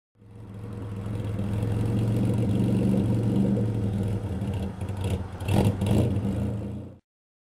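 V6-swapped Toyota MR2 engine running steadily. The sound fades in over the first second, has two brief louder surges about half a second apart near the end, and then cuts off suddenly.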